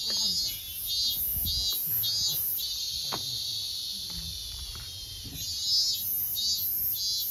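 Insects chirping in a steady high pulse, about two chirps a second, in runs that stop and start. There is a single faint click about three seconds in.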